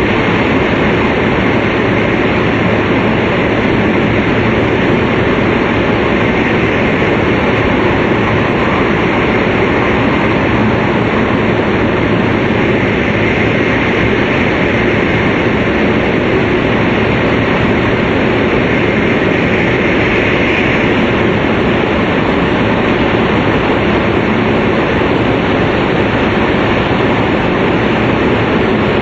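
Tōhoku Shinkansen Hayate train running at speed, heard inside the passenger cabin: a loud, steady rushing rumble of wheels on rail and air, unchanged throughout.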